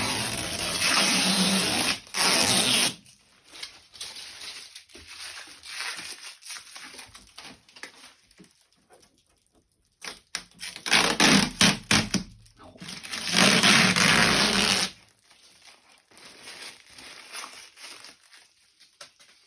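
Packaging on a new tumble dryer being torn off and handled: loud ripping and rustling for the first three seconds and again from about ten to fifteen seconds in, with quieter rustling and scraping in between.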